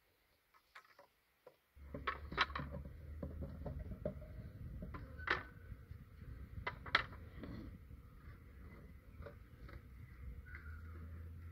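Wooden hive frames clacking and knocking against a wooden swarm box as they are lifted out and handled: a run of sharp wooden clacks, the loudest about two, five and seven seconds in. A steady low rumble sets in about two seconds in and carries on under them.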